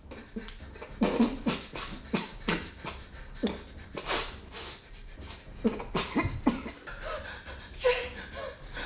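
A man choking, coughing and gasping for breath in short, irregular bursts.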